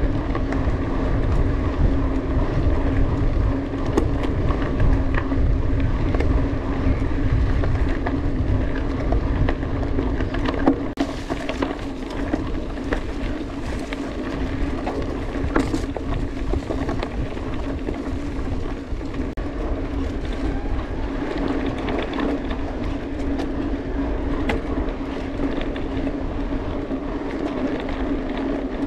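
Mountain bike riding along a trail: tyres rolling over the dirt, and wind rumbling on the camera's microphone, with a steady hum and scattered clicks and rattles from the bike.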